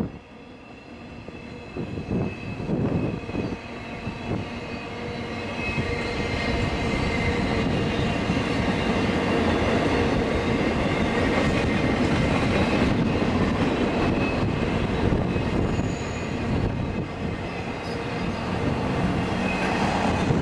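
Norfolk Southern empty double-stack freight train rolling over a steel girder bridge: a steady rumble and clatter of wheels on rail with faint high squealing tones from the wheels. It grows louder over the first few seconds and then holds steady.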